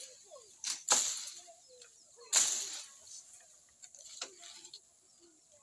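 Bamboo pole knocking into the leafy branches of an elephant apple (chalta) tree to bring down the fruit: four sharp knocks, the third the loudest, each followed by rustling leaves.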